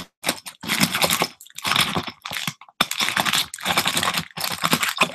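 Crinkling and tearing of the wrapping and seal on a jar of jewelry as it is pulled open, in repeated bouts about a second long.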